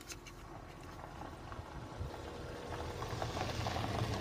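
Low rumble of a motor vehicle's engine growing steadily louder as it approaches, with a few faint scrapes of a fork stirring salad in an aluminium foil tray.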